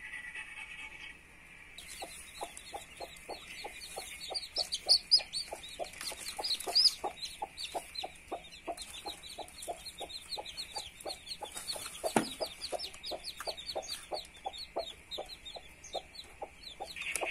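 A brood of chicks peeping in short high calls while a mother hen clucks softly and rhythmically, about three clucks a second. One sharp knock sounds about twelve seconds in.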